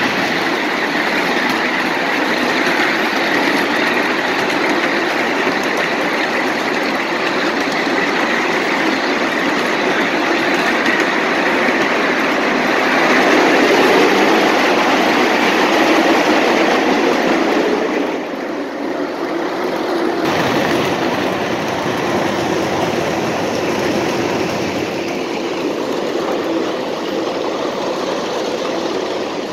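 A 7½-inch-gauge ride-on miniature train running along its track: the steady running noise of the cars' wheels on the rails. It gets louder for a few seconds in the middle, while the train passes through a wooden covered bridge, and dips briefly just after.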